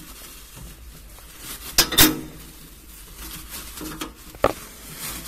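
A few sharp clicks and knocks of the juicer's parts being handled while the peel bag is fitted and fixed with magnets: a loud pair about two seconds in and two more later.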